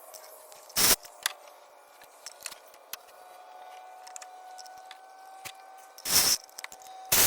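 Hand tools and parts being handled during a coil pack swap: three loud, short clacks, one about a second in and two near the end, with light clinks and clicks between them.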